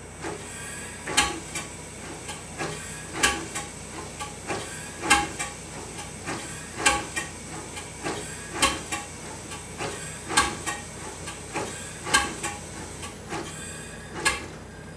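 Stanley SV two-cylinder steam car engine turning slowly on compressed air: rhythmic puffs of exhaust air over a steady hiss, with mechanical knocking. A louder beat comes about every second and three quarters with smaller puffs between, and it stops near the end.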